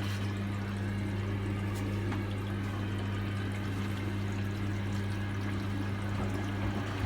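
Hotpoint washing machine taking in water during a wash: water pouring into the drum over a steady low hum.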